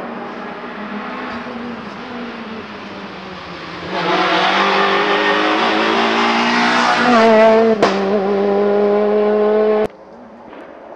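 Renault Clio rally car's four-cylinder engine running hard at high revs, approaching and getting much louder about four seconds in, its pitch rising and shifting through the gears. There is a sharp crack near the end while the revs hold high, and then the sound cuts off suddenly.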